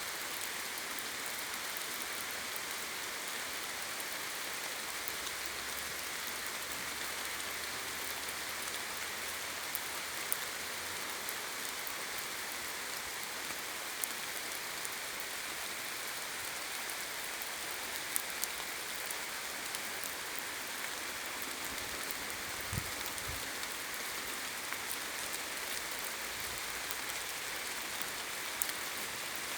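Steady rain falling in a forest, an even hiss with scattered sharp drips of drops landing close by. Two soft low thumps about three quarters of the way through.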